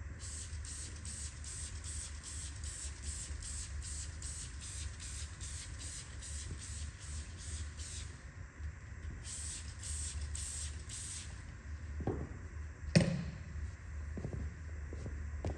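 Hand trigger sprayer squirting cleaning solution onto a rug in quick repeated sprays, about four a second. The spraying pauses, gives a few more squirts and stops, over a steady low hum. A single thump comes about 13 seconds in.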